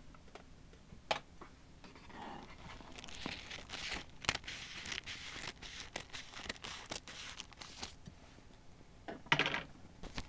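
Thermal stencil (spirit) paper rustling and crinkling as it is handled, with many sharp crackles through the middle and a louder rustle about nine seconds in.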